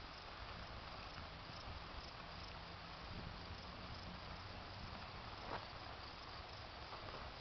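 Faint, steady chirring of insects, with a single sharp click about five and a half seconds in.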